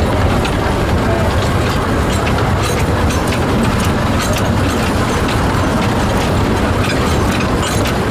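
Wee Georgie Wood, a 1924 narrow-gauge steam locomotive, running along the track, heard from on board close behind its cab: a steady rumble and clatter with light repeated clicks.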